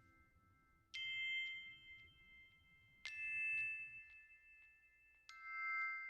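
Three bell-like chime notes, struck about two seconds apart, each ringing on and slowly fading.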